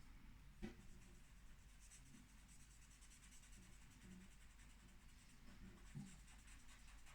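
Faint scratching of a Sharpie marker colouring in on paper, with two soft taps, one about half a second in and one near the end.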